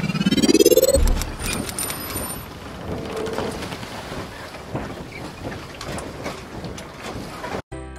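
Logo intro sound effects: a rising swoosh, a deep boom about a second in, then a steady hiss with scattered crackles. Tinkling jingle music starts just before the end.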